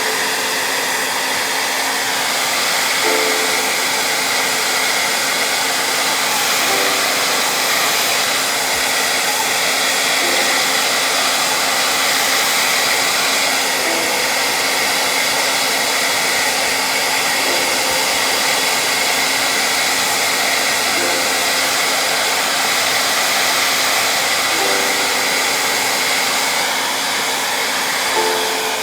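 Steady blowing of an electric hair dryer. A short group of soft musical notes repeats about every three and a half seconds.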